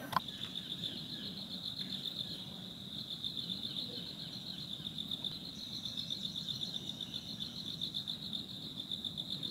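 An insect, cricket-like, trilling steadily at a high pitch, a fast pulsing buzz without a break. A brief click at the very start.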